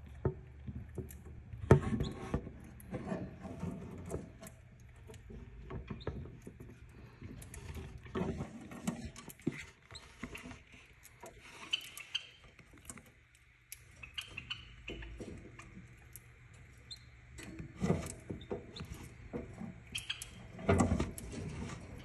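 A Pacific parrotlet moving about at close range: many small clicks and scratches, a few short high chirps, and several louder knocks, about 2 s in and twice near the end.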